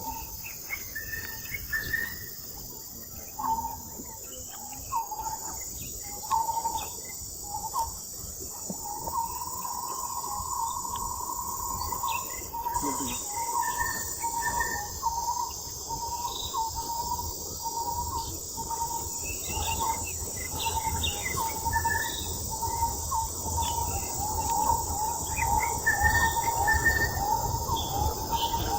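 Steady high-pitched drone of insects, with many short, repeated chirping calls from animals throughout, coming thicker and faster toward the end.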